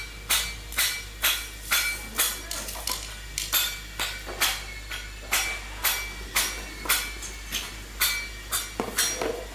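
Hammer blows on metal in a steady rhythm of about two strikes a second, each with a short metallic ring.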